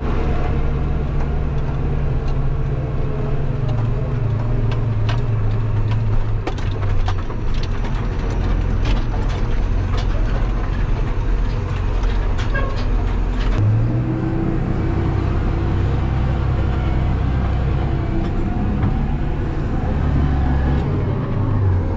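Big farm tractor's engine running steadily, heard from inside its cab as it drives over a muddy field. It is a low drone that shifts pitch a couple of times, with scattered clicks and rattles.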